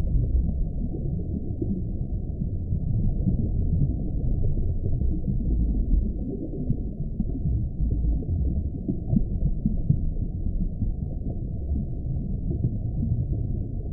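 Experimental sound-art soundtrack: a deep, muffled rumbling drone with nothing high-pitched in it, swelling and ebbing irregularly.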